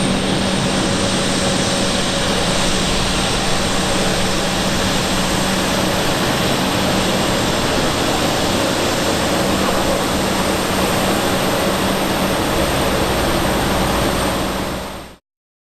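Embraer 195 airliner's twin General Electric CF34 turbofan engines running steadily with a low hum, heard after landing; the sound fades out near the end.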